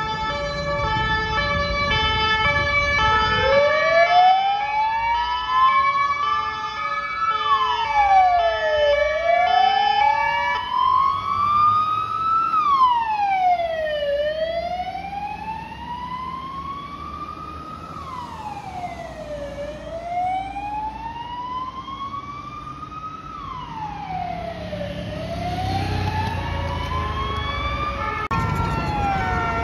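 Emergency vehicle sirens passing. A French two-tone siren alternates between two pitches until about ten seconds in. From about three seconds in it is overlapped by an American-style wail siren that rises and falls slowly, about every five and a half seconds, and carries on throughout. A further siren joins near the end.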